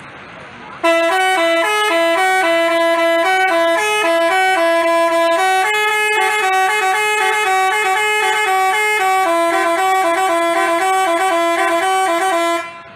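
Telolet musical horn of the Basuri type playing a fast multi-note tune, its notes changing several times a second. It starts about a second in, after a fainter hiss, and stops just before the end.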